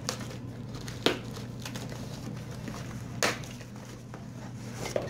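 Cardboard shipping box being opened by hand: a few short scrapes and tearing sounds from the packing tape and flaps, the longest about three seconds in, over a steady low hum.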